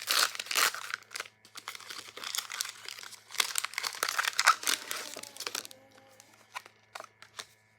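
Foil booster-pack wrapper crinkling and crackling as it is handled, dense for about six seconds, then giving way to a few light ticks.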